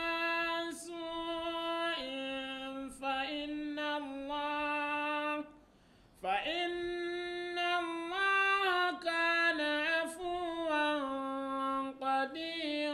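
One voice chanting a Quranic verse in melodic tajwid recitation. It holds long, drawn-out notes and slides between pitches, with a short pause for breath about five and a half seconds in.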